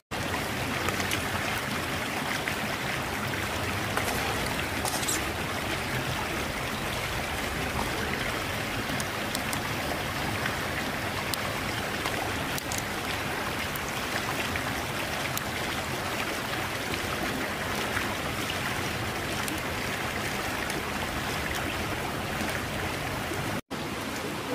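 A river flowing steadily over stones, with a few faint clicks over it. The sound drops out briefly near the end.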